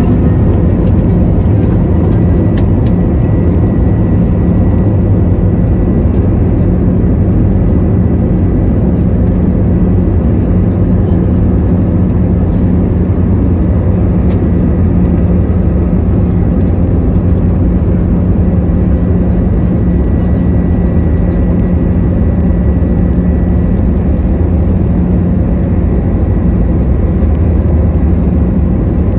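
Airbus A320-family jet's turbofan engines at takeoff thrust, heard from inside the cabin beside the wing: a loud, steady roar with a deep rumble underneath and a faint high whine held on one pitch.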